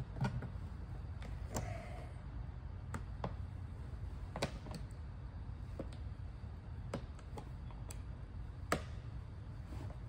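Box cutter blade catching and snapping through the hard plastic of a skeleton prop's skull as it is trimmed, giving about a dozen sharp clicks at irregular intervals. A steady low hum runs underneath.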